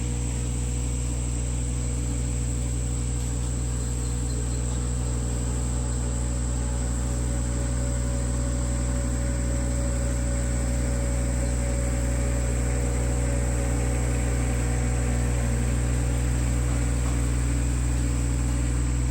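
Vehicle engine running steadily while driving, with a constant high-pitched whine over it.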